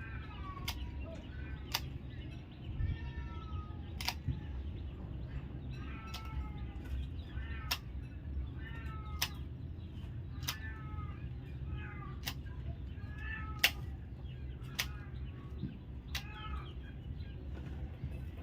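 A cat meowing over and over, short calls about every second, with sharp clicks between them and a steady low hum underneath.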